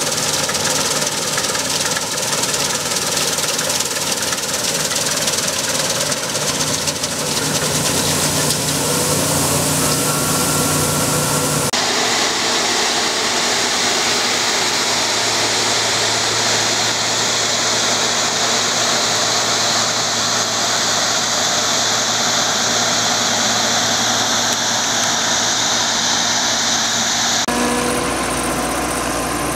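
Combine harvesters running at work: first a Massey Ferguson 7272 combine harvesting, then a Claas Tucano 450. Their engines and machinery run steadily, and the sound changes abruptly about twelve seconds in and again near the end.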